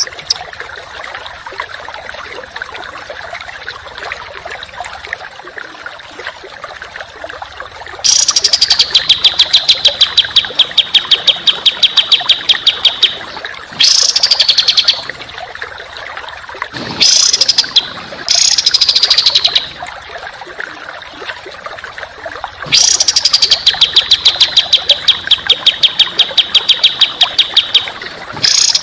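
Songbird singing rapid 'tembakan' phrases: bursts of sharp notes repeated fast, about eight a second, each burst opening with a falling note. The bursts last one to five seconds and sound over a steady hiss that runs alone for the first several seconds.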